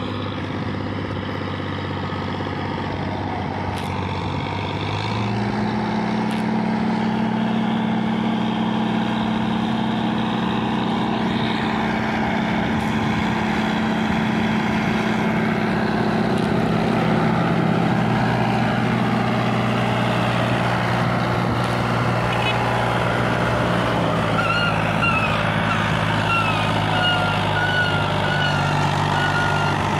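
New Holland Al-Ghazi tractor's diesel engine working hard under heavy load, pulling a trolley of 208 wheat bags up an incline; its note rises about five seconds in and then holds steady. A string of short high chirps joins in near the end.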